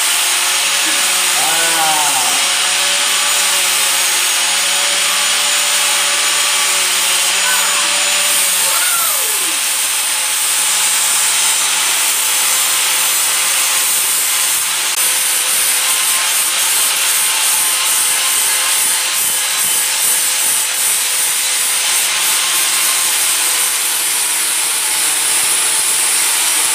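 Electric angle grinder grinding the steel face of a railroad-rail anvil, cleaning it up, running steadily and loudly throughout. Its pitch dips and recovers a few times in the first ten seconds.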